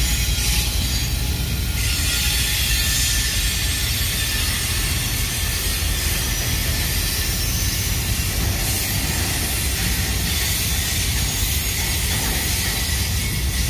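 Double-stack intermodal freight train rolling past: steady rumble of the wheels on the rails with a continuous high hiss.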